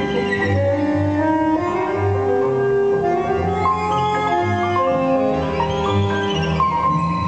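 Recorded tango music played over loudspeakers for the dance: piano with bowed strings, a melody of held notes over chords.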